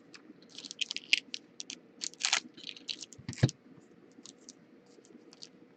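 Trading cards handled and flicked against one another as a pack is sorted: a rapid, irregular run of small clicks and slaps that is busiest in the first half and thins out after about three and a half seconds.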